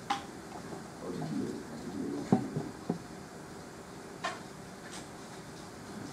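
A handful of light knocks and clicks, about five, the loudest a little past two seconds in, with soft rustling shortly before it, over steady room hum.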